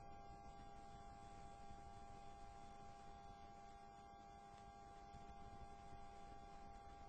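Near silence: a faint steady electrical hum and hiss, with no other sound.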